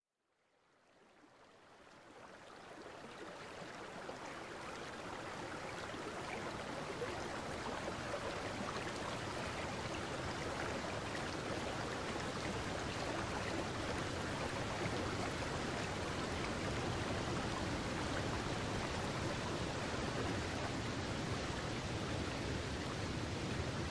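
Steady rushing water noise, fading in from silence over the first several seconds and then holding even.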